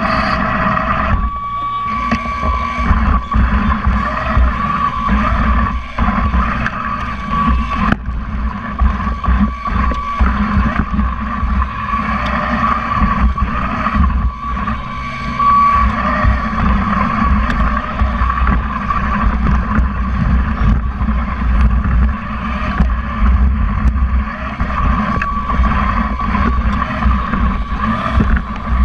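Small electric drive motors of a PVC-framed competition robot running with a steady whine over a low rumble, with scattered knocks from the frame as it drives, heard from a camera mounted on the robot.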